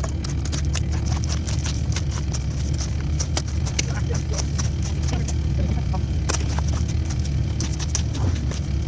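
CAT 308 mini excavator's diesel engine running steadily, with many irregular sharp clicks and knocks over it.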